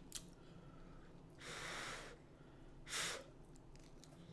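A person breathing out hard twice: a longer breath about a second and a half in, and a shorter, louder one around three seconds. It is a reaction to the heat of a spicy seafood sauce. A faint click comes at the very start.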